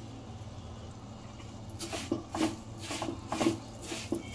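Wooden spoon stirring and scraping crumbly roasted semolina, raisins and khoya in a nonstick pan, about two strokes a second starting about two seconds in, over a low steady hum.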